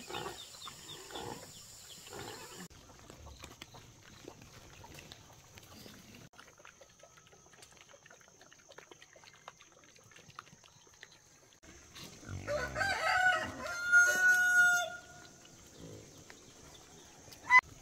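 A rooster crowing once, about twelve seconds in, the crow ending on a long held note. Fainter farm-animal sounds before it, and a short sharp call near the end.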